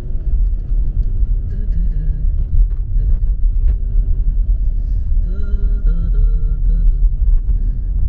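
Steady low rumble of a car driving, heard from inside the cabin: tyre and engine noise over a rough, worn road surface.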